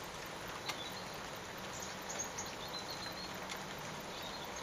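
Steady rain falling on a garden and a wet bird table, with a couple of sharp drip-like taps and a few faint high chirps.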